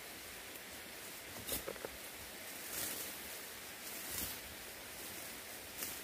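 Leafy undergrowth rustling and crackling as weeds and brush are pulled up by hand. There are a few short bursts over a steady background hiss.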